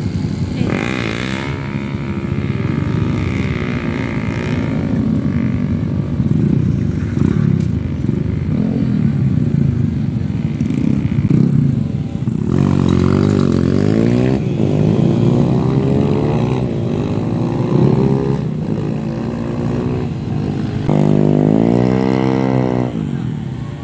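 Several motorcycle engines, including dirt bikes, running and being revved, their pitch sweeping up and down. The clearest revs come a little past halfway and again near the end.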